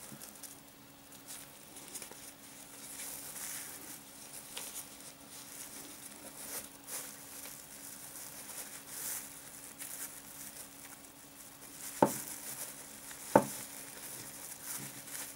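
Thin PVA bag crinkling and rustling as it is handled by hand, with two sharp taps near the end.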